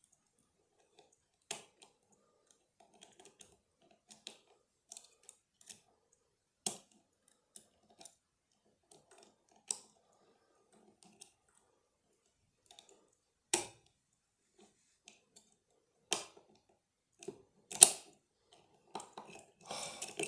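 Lock picks and a tensioning tool clicking and scraping inside a lever lock, with irregular faint ticks and half a dozen sharper clicks where the tool slips off the lever. The loudest click comes near the end.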